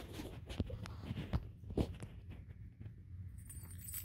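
Kittens scuffling and batting plush toys on carpet: soft rustles and a run of light knocks, the loudest a little under two seconds in. Near the end a high tinkling starts, the bell inside a rolling plastic cat ball toy.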